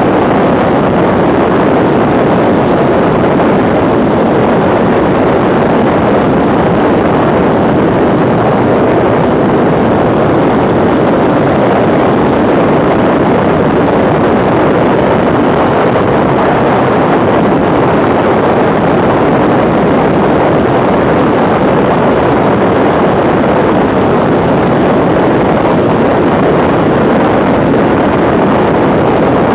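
BMW R1150R motorcycle riding at a steady cruising speed: the flat-twin boxer engine and wind rushing over a handlebar-mounted camera make one loud, even rush that doesn't change.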